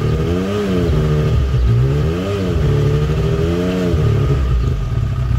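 Honda quad (ATV) engine revved up and down three times, then settling back to a steady idle about four seconds in.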